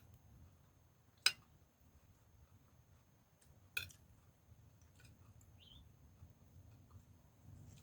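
Two short, sharp clinks of an eating utensil against a dish, about two and a half seconds apart, over a faint low background rumble.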